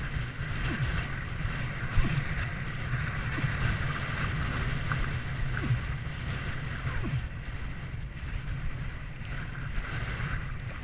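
Strong wind buffeting the microphone in a steady low rumble over a rushing hiss, with a few brief knocks, the loudest about two seconds in.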